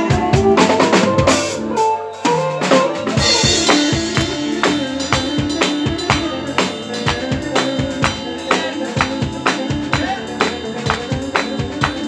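Live band playing an instrumental passage of an arabesk song, led by a drum kit keeping a steady, busy beat under held instrument notes. A cymbal crash comes about three seconds in.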